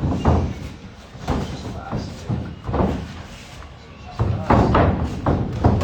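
Boxing sparring: gloved punches landing in short flurries, the fastest run of hits coming about two-thirds of the way through, with voices and sharp exhales mixed in.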